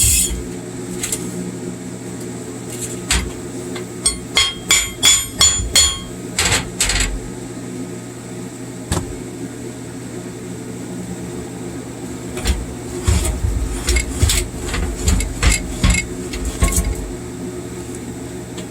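Chipping hammer striking a freshly quenched 7018 arc weld to knock off the slag: two runs of quick metallic taps, the first ringing and the second duller, over a steady electrical hum.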